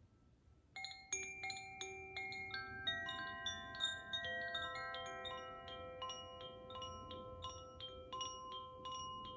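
Koshi chime being sounded: after a near-quiet first second, a stream of sweet, bell-like tones at several pitches rings out as its tuned rods are struck by the clapper inside. The tones overlap and sustain into a continuous shimmer.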